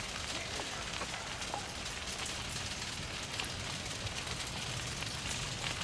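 Steady rushing noise of a bicycle rolling along a path, with faint scattered clicks and ticks.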